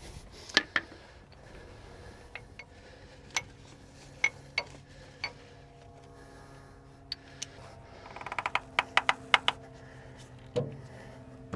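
Scattered metal clicks and knocks of a strap wrench being fitted around an overtightened engine oil filter. A little past two-thirds of the way in comes a quick run of ratchet clicks as a ratchet works the strap wrench, and a single duller thump follows near the end.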